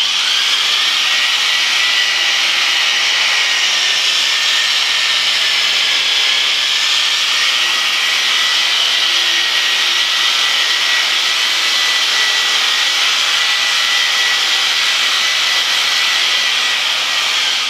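Electric sheep shears running with a steady high whine as the cutter combs through a ram's wool fleece. The whine stops near the end.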